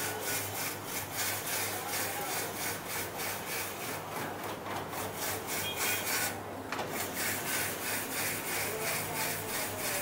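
A block of ice being shaved for a gola: quick, even rasping strokes, about four or five a second, with a brief pause a little past the middle.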